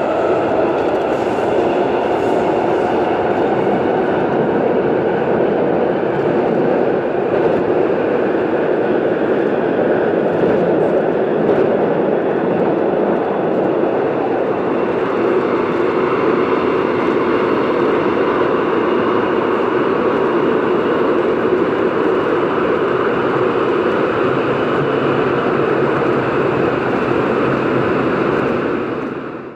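Running noise of MTR West Rail Line trains, from two recordings mixed one to each stereo channel. The sound is a steady rumble of wheels and motors that holds level and fades out at the very end.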